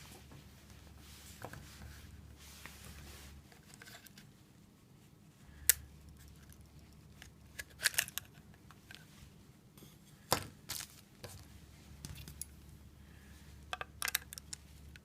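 Handling noise from small hard objects: a few separate sharp clicks and knocks, the loudest about six seconds in, with others around eight, ten and fourteen seconds. A faint low hum underneath drops out twice.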